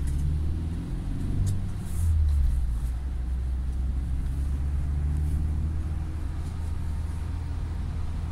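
Steady low rumble of a 2019 UAZ Patriot heard from inside the cabin: its ZMZ Pro petrol engine and tyre noise as it moves at low speed in traffic. It swells briefly louder about two seconds in.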